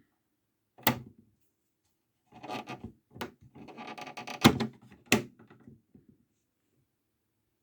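A toy washing machine being handled: a sharp plastic click about a second in, then rubbing and rattling with two more sharp clicks near the middle, before it falls quiet.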